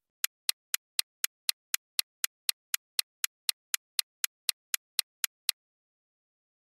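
Countdown timer sound effect: a steady run of short clock-like ticks, about four a second, that stops after some twenty ticks.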